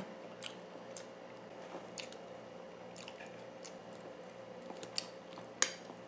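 A person chewing boiled egg white, with faint scattered mouth clicks. Near the end, a sharp clink as a metal spoon strikes a ceramic bowl of soaked kibble.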